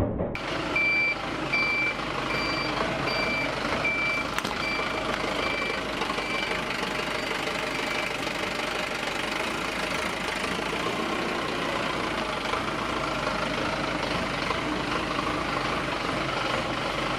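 Truck's reversing alarm beeping in an even rhythm, about three beeps every two seconds, fading and stopping about halfway through, over the steady running noise of the truck's engine.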